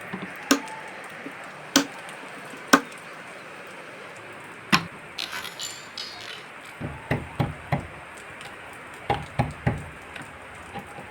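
Hammer blows on wood during joinery work. There are four sharp single strikes about a second apart, a brief scraping sound, then a quicker run of duller, deeper knocks.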